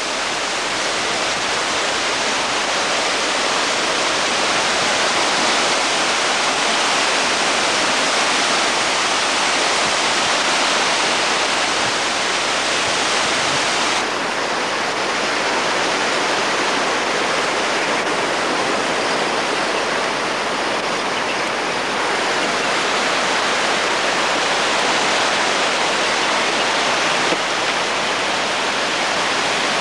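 Steady, loud rush of water, an even hiss and roar with no break, easing a little about halfway through.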